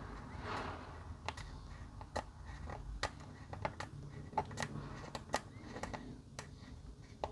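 Sparse, irregular light clicks and taps of small polystyrene model-kit parts being worked by hand, likely the slot in the kit's wave piece being cut out and fitted.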